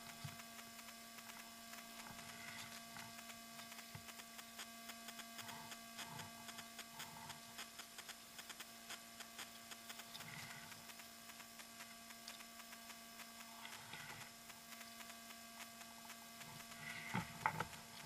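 Steady electrical hum made of several fixed tones. Faint scattered clicks and rustles sit over it, with a brief louder cluster of them near the end.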